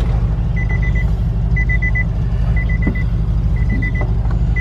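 2003 Nissan Altima's warning chime sounding in groups of four quick beeps, about once a second, starting about half a second in: the reminder that the key is still in the ignition with the door open. Under it runs a steady low rumble.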